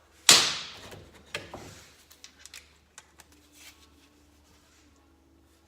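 Hand tools and engine parts handled on a workbench: one loud, sharp knock about a third of a second in that rings away over about a second, then two lighter knocks and a few small clicks.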